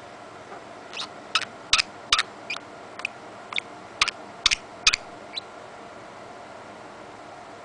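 Budgerigar giving a quick run of about a dozen short, sharp chirps, starting about a second in and lasting some four seconds; a few come with a soft low knock.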